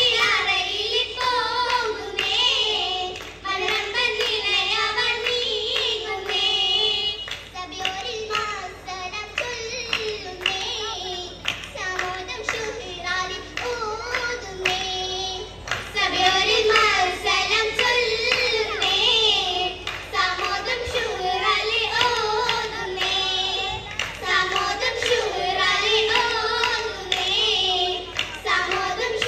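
Oppana song: a group of girls singing a Mappila song together, with rhythmic hand clapping.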